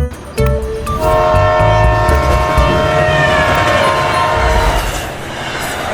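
Train horn sounding one long, steady chord for about four seconds over the rumble and clatter of a train on the rails; the horn stops near the end and the rolling rumble carries on.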